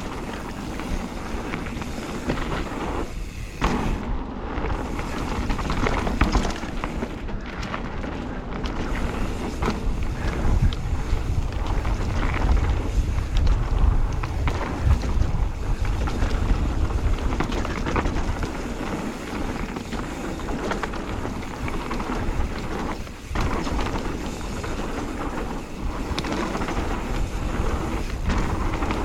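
Knobbly tubeless mountain bike tyres (Schwalbe Magic Mary front, Hans Dampf rear) rolling over a dirt trail: a steady rumble and crunch with many small knocks and rattles from the bike over bumps. Wind buffets the helmet camera's microphone, and the rumble grows heavier for several seconds in the middle.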